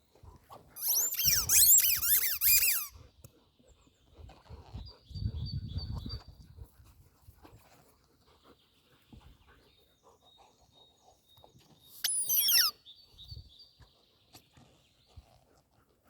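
Squeaky pet toy squeezed in rapid squeaks: a dense two-second run of squeaks about a second in and a short burst of falling squeaks near the end. A low rumbling sound lies between them.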